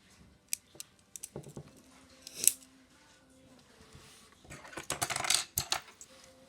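Plastic LEGO Technic pieces clicking and clattering as they are handled, with scattered single clicks and a quick burst of rattling about five seconds in.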